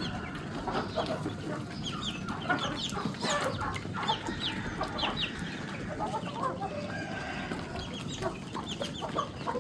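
Flock of chickens clucking, with many short high-pitched calls over a steady low background hum.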